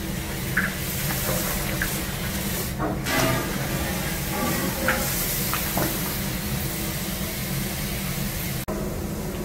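Pork back ribs steaming and sizzling in a large stainless cooking kettle, with a steady low hum underneath and a few light scrapes of a wooden paddle stirring the meat.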